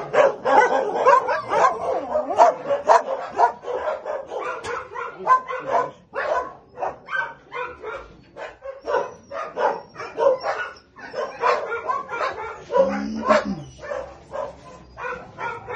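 Shelter dogs in kennels barking over and over, the barks coming thick and overlapping, with a few thin high whines about nine to eleven seconds in.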